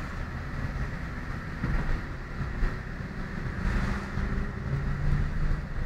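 Car engine and road noise heard from inside the cabin while driving, a steady low rumble with an engine hum that grows a little stronger near the end.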